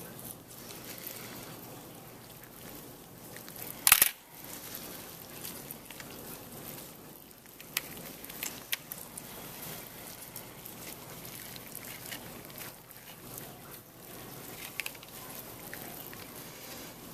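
Dissecting instruments and gloved hands working tissue on a stainless steel dissection tray: faint rustling and scattered small clicks, with one sharp click about four seconds in.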